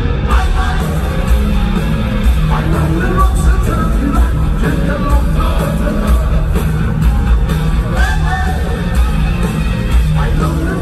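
Rock band playing live, recorded from the audience: electric guitars, bass and drums with a steady beat, and a singer's voice over them.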